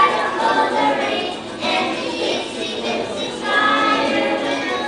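A group of kindergarten children singing together as a choir, with music.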